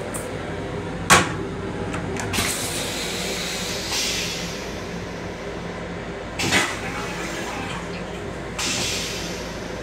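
M7 railcar toilet flush cycle: a sharp clunk, then rinse water hissing into the stainless steel bowl. A second clunk comes about five seconds later and a last short spray near the end, over the steady hum of the railcar.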